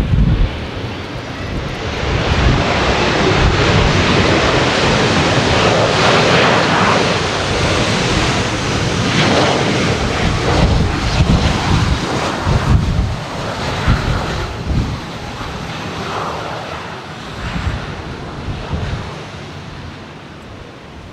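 Jet airliner passing close on takeoff or landing: engine noise swells about two seconds in, holds loud, then fades away, with wind buffeting the microphone.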